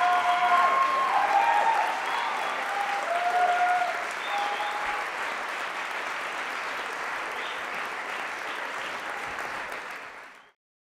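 Theatre audience applauding, with whoops and cheering voices over the clapping for the first few seconds. The applause eases after about four seconds and then cuts off abruptly near the end.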